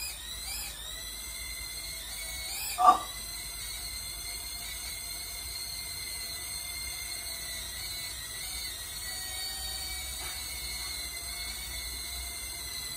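Cheap toy quadcopter drone's small motors and propellers whining as it flies, the pitch wavering with the throttle in the first few seconds and then holding steady. One brief louder sound about three seconds in.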